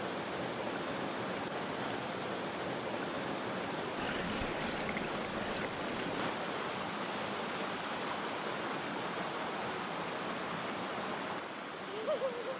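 Shallow rainforest stream rushing and splashing over rocks in a steady, even rush of water.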